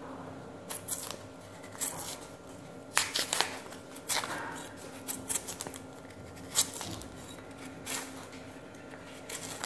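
Knife blade cutting and scraping the skin off a cassava root in short strokes at irregular intervals.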